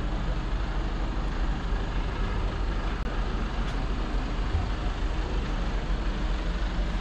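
Diesel tractor engine idling, a steady low rumble.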